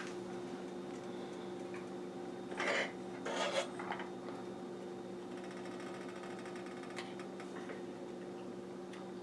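A steady electrical hum from a kitchen appliance. Over it, a metal spoon scrapes twice against a steel pot and measuring cup about three seconds in, and a faint click comes later.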